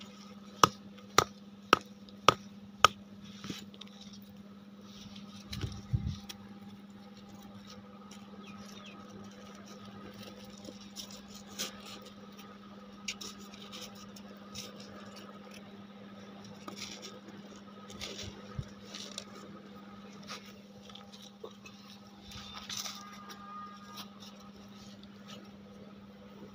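Dried cow-dung cakes being broken and packed into a plastic tub: five sharp knocks in quick succession in the first three seconds, a dull thud about six seconds in, then scattered light clunks and scrapes, over a steady low hum.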